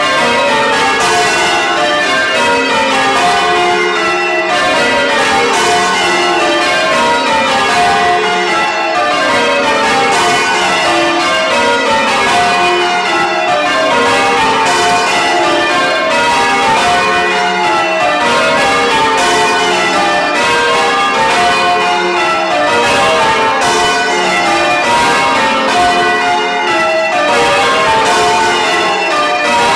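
Loud full-circle church bells being change-rung, each row a run of strokes stepping down in pitch from treble to tenor. The rows follow one another about every two seconds without a break.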